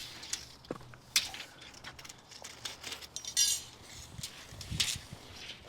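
Scattered light clinks and taps of hand tools being handled on a concrete slab, with one short, high, whirring zip about three and a half seconds in.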